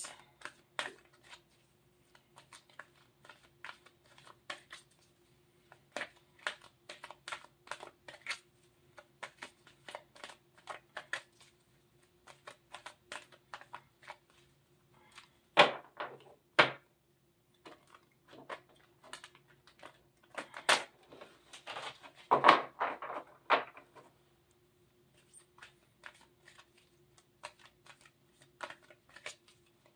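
Angel Answers oracle cards being shuffled by hand: a long run of soft flicks and taps as cards slide through the deck, with louder clusters about halfway through and again around two-thirds in. A faint steady hum lies underneath.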